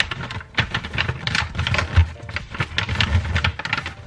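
Wrapping paper crinkling and rustling as it is folded and creased over the top of a gift box, with dull thumps of hands pressing on the box, the loudest about two seconds in.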